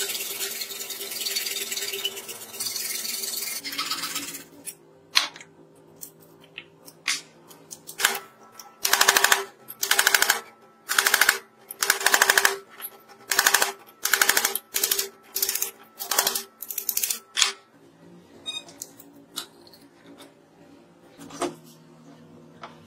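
Hacksaw cutting into a microwave-oven transformer's steel core and copper windings: a continuous rasp of quick strokes for about four seconds. About eight seconds in comes a run of about fifteen separate loud rasping strokes, roughly one and a half a second, and after it only a few light clicks of handling.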